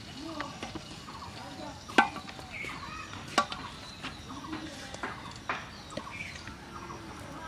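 Birds calling and chirping in short, repeated calls, with a few sharp clicks or knocks scattered among them.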